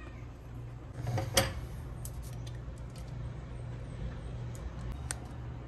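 Metal spoon scraping and knocking against a plastic tub of melted chocolate, with one sharp knock about a second in and a few light clicks after, over a low steady hum.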